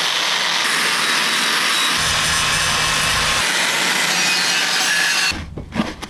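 Angle grinder with a polishing wheel running against a cast aluminum car wheel, smoothing the rough marks left by the flap disc. It makes a steady, loud grinding hiss that stops about five seconds in.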